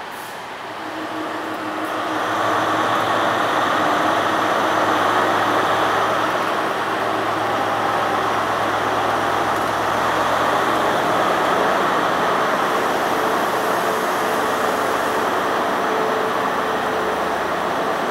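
Class 43 HST (InterCity 125) power car's diesel engine running loud and steady in the station, growing louder about two seconds in.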